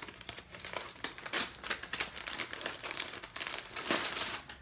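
Packaging crinkling and rustling in irregular bursts as it is handled and pulled open to get at the clothes inside the box.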